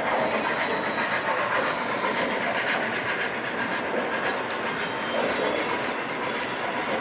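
O-gauge model trains running on metal track: a steady rolling rumble of the wheels with fast, even clicking over the rails.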